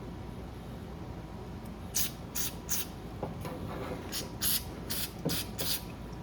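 Aerosol brake cleaner sprayed in about nine short hissing bursts, starting about two seconds in, to flush out small-engine carburetor jets and passages.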